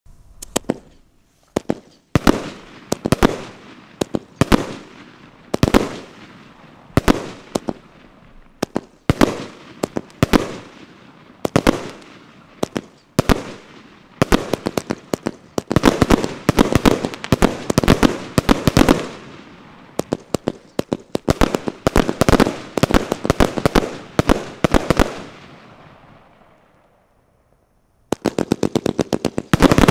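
A Zeus Fireworks Retribution compound, a 200-shot, 25 mm bore firework cake, firing shot after shot: sharp reports, each with a short fading tail. They come sometimes spaced and sometimes in fast runs, with a lull of about two seconds before a rapid volley near the end.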